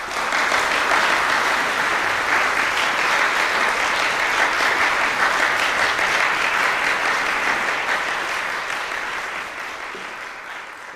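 Audience applauding. It breaks out suddenly, holds steady, and tapers off over the last few seconds.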